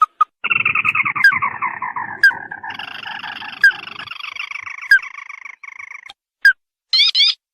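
Crake (tikusan) calls played as a bird-lure recording: a long rattling trill that slides downward in pitch, overlapped by a second, steadier trill. Short sharp chirps repeat about every second or so.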